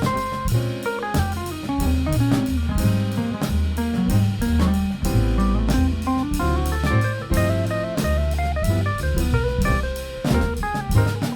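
A band playing an instrumental passage in a jazzy style: drum kit and guitar over a moving bass line, with no singing.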